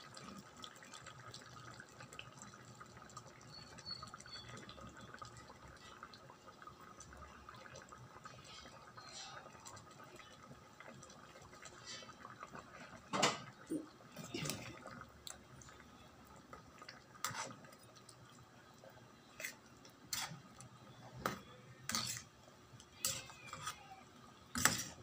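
Faint liquid sound of cream being poured into a steel pan of beef stew. From about halfway through, a metal ladle knocks and scrapes against the pan in about ten irregular clinks as the stew is stirred; the loudest comes near the end.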